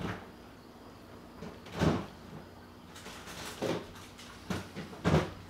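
Kitchen cupboard doors knocking shut: a few separate thuds, one about two seconds in, softer ones around three and a half and four and a half seconds, and the loudest near the end.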